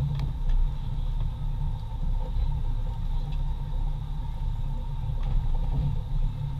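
Steady low rumble aboard a small boat at sea, the wind and boat noise carried by the camera's microphone, with a few faint ticks.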